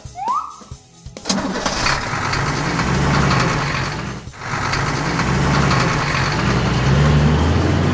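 Sound effect of a big semi-truck's diesel engine starting up and running with a heavy rumble. A short rising tone comes just before, and the engine sound dips briefly about four seconds in, then carries on.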